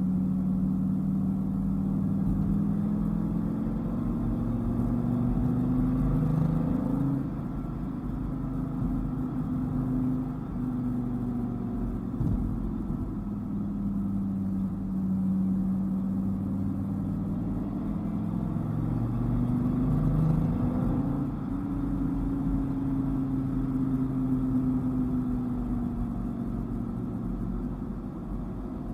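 Dodge Viper's V10 engine under way, its note rising and falling repeatedly as the car accelerates and eases off, with a drop in pitch about seven seconds in and again near the end.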